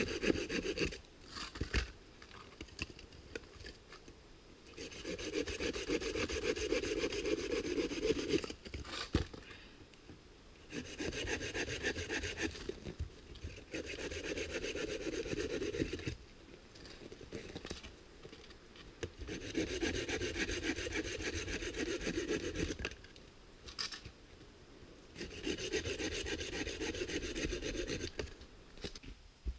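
Hand saw cutting through a wooden branch with fast back-and-forth strokes, in spells of two to four seconds with short pauses between them and a few light knocks in the pauses.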